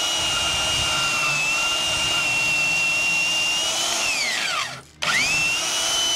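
Harbor Freight handheld band saw's electric motor running with a steady whine while cutting through a steel trailer frame. About four seconds in the trigger is let go and the motor winds down, then it starts again about a second later and winds back up to speed.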